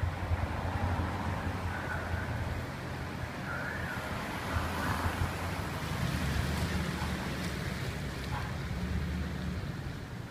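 Fire department pickup truck's engine running as it pulls out and drives off: a low, steady rumble over a rushing background noise.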